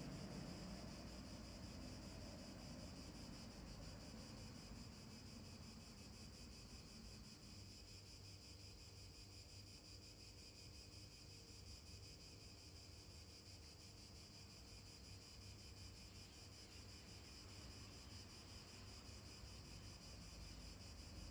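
Near silence: a faint, steady outdoor background hiss with a low rumble underneath.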